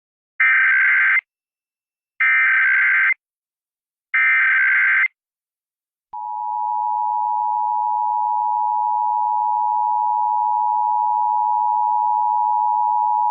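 Emergency Alert System SAME header: three short data bursts, each under a second with about a second's gap between them. About six seconds in, the steady two-tone EAS attention signal starts. Together they open a National Periodic Test alert.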